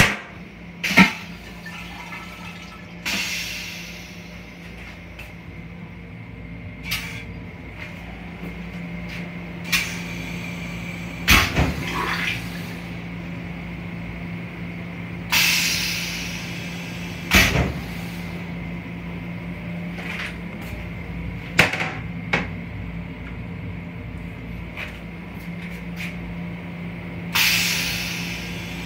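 Toilet in an LIRR M7 rail car's restroom: its plastic seat lid knocks shut and is lifted again several times. Three short hissing rushes of water, about twelve seconds apart, are the bowl flushing. A steady low hum from the rail car runs underneath.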